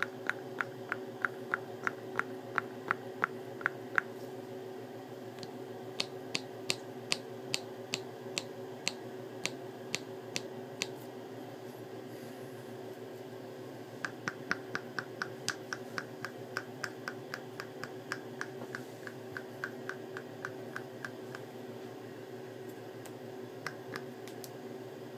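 A joint cracked over and over: sharp clicks at about three a second in three runs, then a few scattered clicks near the end, over a steady low hum.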